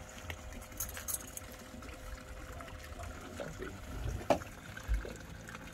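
Water trickling and lapping around the boat, with a faint steady hum underneath. A sharp knock about four seconds in and a low thump just after.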